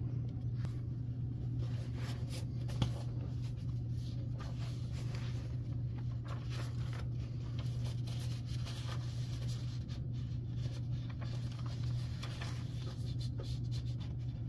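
Paper forms being handled and written on: light rustles and pen scratches over a steady low hum.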